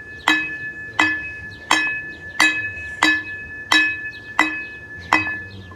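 A bright ringing clink struck over and over at an even pace, about one every 0.7 seconds. Each strike rings at the same high pitch and fades before the next.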